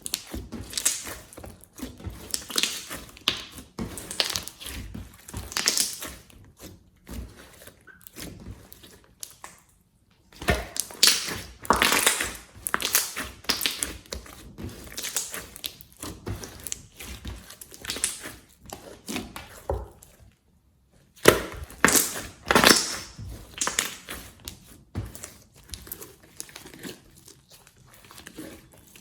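Slime being squeezed and pressed by hand, making irregular bursts of squishy, crackly noise, broken twice by brief total silences.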